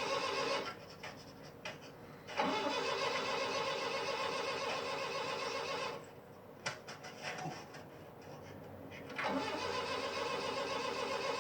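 A van's engine being cranked by its starter and failing to catch. Three cranking attempts are broken by two short pauses, with a few clicks in the pauses.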